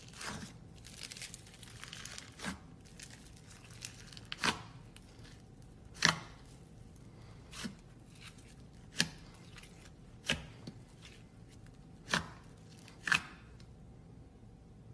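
Slime being handled close up: soft crackling with about nine sharp clicks or snaps, roughly one every second and a half.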